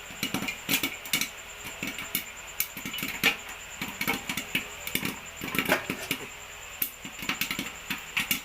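Pressure cooker venting steam: a steady hiss with its weight rattling and clicking irregularly on top, the strange cooker noise.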